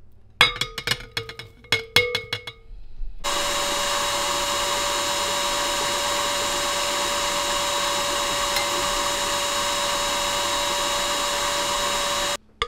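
A few sharp knocks and clatters, then a KitchenAid Artisan stand mixer's motor running steadily with a constant whine for about nine seconds as it mixes flour into cake batter. The motor cuts off suddenly near the end.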